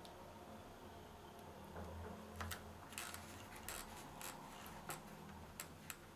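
Faint, irregular light clicks and rustles of red foam tape being handled and pressed onto a picture frame. The clicks start a couple of seconds in, a few of them in quick pairs, over a low room hum.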